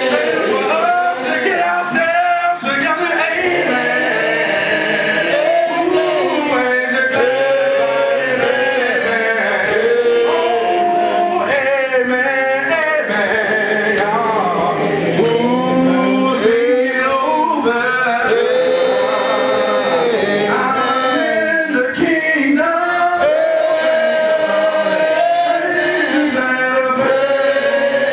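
A man singing a hymn through a microphone, unaccompanied, with other voices of the congregation joining in. The held, sung notes carry on without a break.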